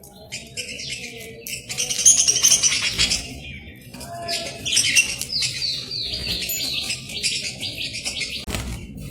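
Budgies chattering and warbling, a dense run of quick high chirps that grows loudest a couple of seconds in and again about halfway through.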